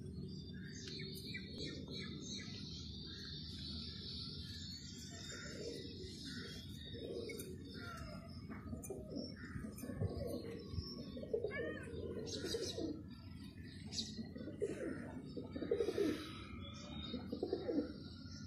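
Fantail pigeons cooing again and again, the coos growing louder from about five seconds in, with small birds chirping in the background over a steady low rumble.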